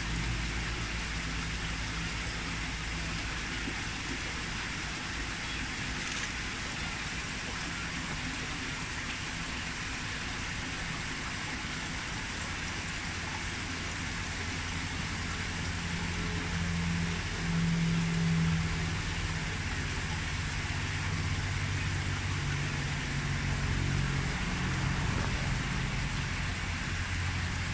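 Steady background hiss with a low droning hum under it; the hum grows louder for a couple of seconds about two-thirds of the way through.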